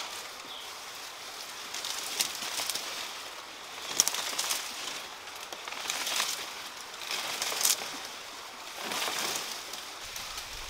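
Dry banana leaves and undergrowth rustling and crackling as they are handled, with sharp snaps about two, four and seven and a half seconds in.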